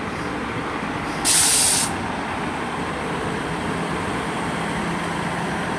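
Class 158 diesel multiple unit running at the platform, its engine making a steady rumble. About a second in, a loud hiss of released air lasts about half a second, typical of the train's air brakes as it gets ready to depart.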